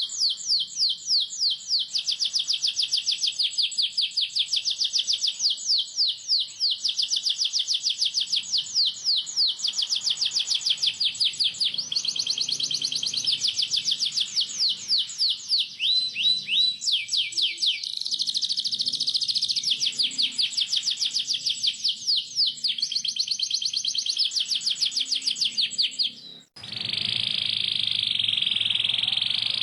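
Canary singing a long run of tight rolls: fast, high chirps repeated many times a second, changing note type every few seconds. About 26 seconds in it breaks off briefly and resumes as a dense, continuous trill.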